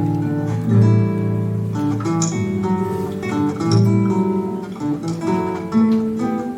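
Classical guitars playing together: plucked notes ring on over a low bass line, with several voices sounding at once.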